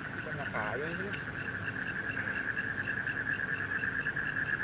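Night chorus of crickets and other insects: a steady trill with an even pulsing chirp, about five pulses a second.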